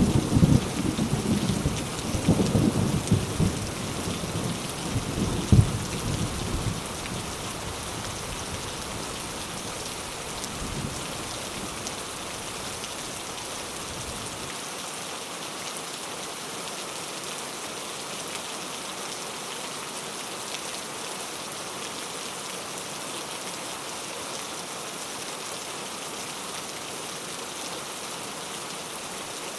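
Thunderstorm: a low thunder rumble, with a louder clap about five seconds in, dies away over the first seven seconds or so. Steady heavy rain keeps falling throughout.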